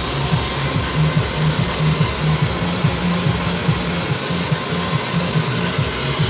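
Handheld hair dryer blowing steadily as hair is blow-dried, with background music carrying a pulsing bass line over it.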